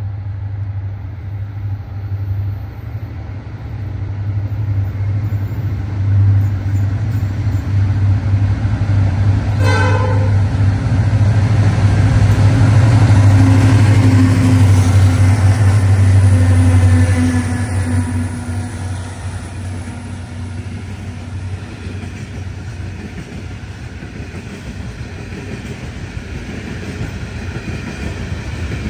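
Pacific National freight locomotives working a grain train, with a deep diesel rumble that builds as they approach and is loudest as they pass. About a third of the way in there is a short horn blast. The grain wagons then roll past with a steadier, lower rushing sound.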